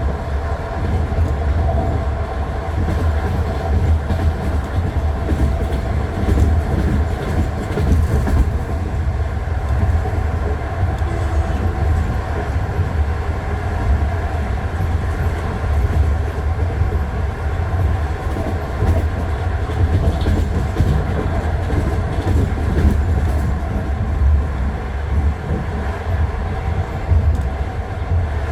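Passenger train's wheels running over jointed rail track, heard from inside the carriage: a steady low rumble with the knocking of the wheels crossing the rail joints.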